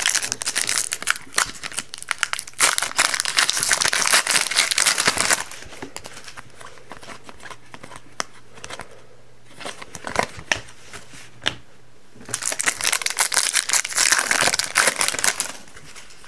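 Panini Prizm hockey card pack wrappers being torn open and crinkled, in two stretches of crackling wrapper noise with a quieter gap between them holding a few light clicks.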